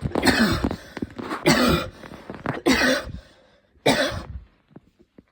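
A woman's intense coughing fit: four loud coughs about a second apart, dying away near the end.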